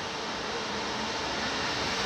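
Czech ČD electric locomotive passing slowly along the platform: a steady running rush with a faint hum, growing a little louder as it draws level.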